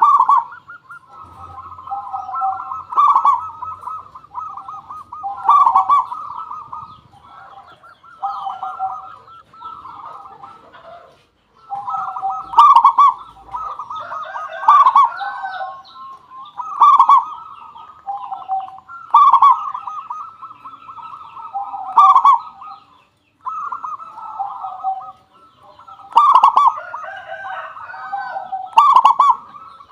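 Zebra doves cooing: phrases of rapid staccato coos that follow one another almost without pause, with a loud peak every two to three seconds.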